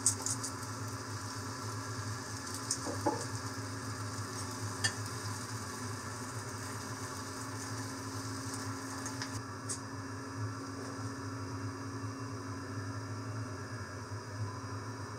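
Yakisoba noodles and cabbage sizzling in a stainless pot on an induction hob as they are stirred with a metal spatula, with a few short clicks of the spatula against the pot. A steady low hum runs underneath.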